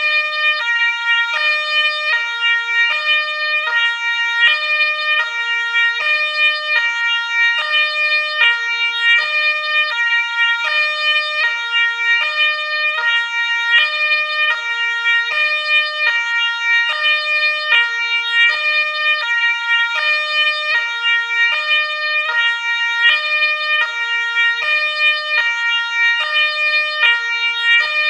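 Two-tone ambulance siren sounding continuously, switching back and forth between a high and a low note in an even rhythm, with no glide between them.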